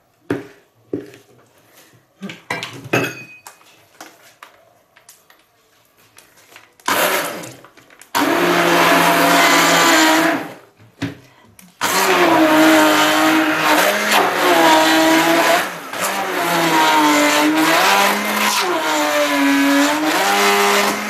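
Hand-held immersion blender beating cottage cheese with eggs and sugar in a plastic jug. After a few light knocks against the jug, the motor starts about seven seconds in with a short burst, runs for about two seconds, stops briefly, then runs steadily to the end, its pitch dipping and recovering several times.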